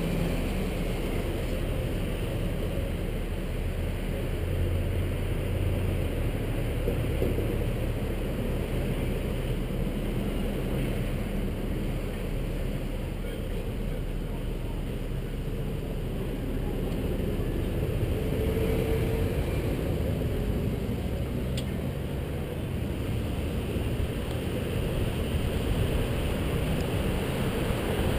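Street traffic at an intersection: vehicles idling and passing, a steady low rumble with an engine hum in the first few seconds. Wind on the microphone picks up near the end as the bicycle moves off.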